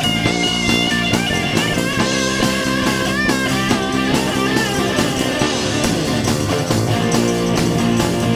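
Live rock band playing, with electric guitar lines over bass and drums.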